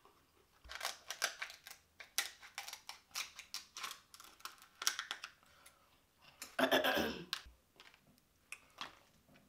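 Close-miked eating sounds: wet mouth clicks and smacks while chewing king crab leg meat, with a louder, longer mouth sound about seven seconds in.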